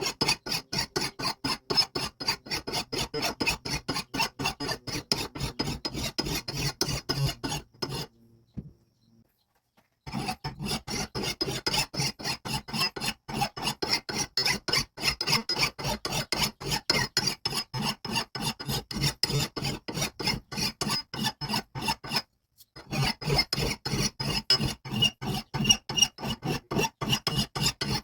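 Rapid hand rasping, about four strokes a second, with two short breaks.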